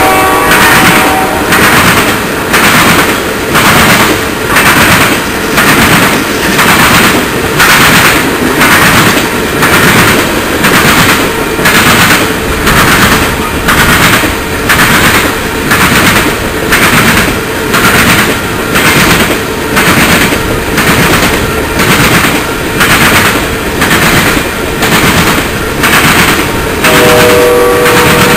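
Loaded coal hopper cars rolling past on the rails, their wheels clacking in a steady rhythm of about one beat a second as each car goes by. A steady chord of tones sounds briefly at the start and comes in again near the end.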